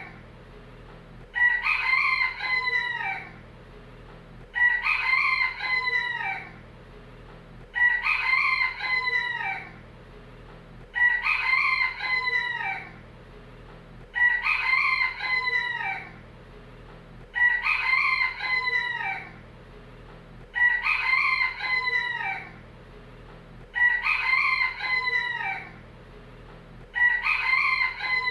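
A rooster crowing again and again, one cock-a-doodle-doo about every three seconds, each crow the same call repeated nine times.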